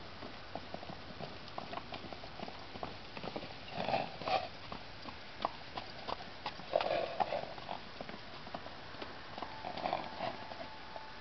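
Irregular hoofbeats of two loose horses trotting and cantering on an arena's sand footing, with three louder short rushes of noise about four, seven and ten seconds in.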